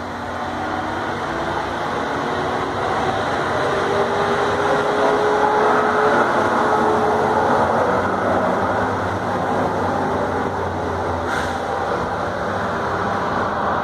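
Steady mechanical drone with faint, slowly drifting tones, growing somewhat louder after the first few seconds, with a faint click near the end.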